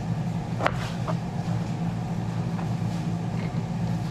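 Knife cutting raw pork ribs into small pieces on a plastic cutting board, with a couple of sharp taps of the blade on the board about a second in. A steady low hum runs underneath.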